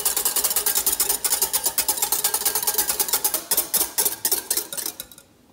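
Wire balloon whisk beating egg white by hand in a glass bowl: rapid, even strokes of the wires clicking and scraping against the glass. The strokes slow and stop near the end, as the white has been whipped to stiff peaks.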